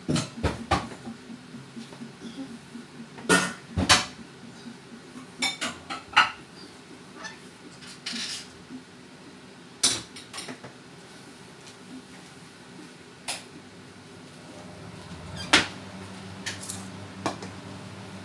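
Kitchen dishes and utensils being handled, with scattered sharp clinks and knocks, about a dozen spread irregularly through the stretch. A low steady hum runs underneath and grows a little louder about two thirds of the way in.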